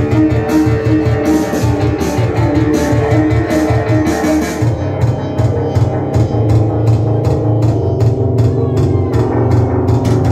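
Punk rock band playing live and loud: electric guitar, bass guitar and drum kit with a steady beat.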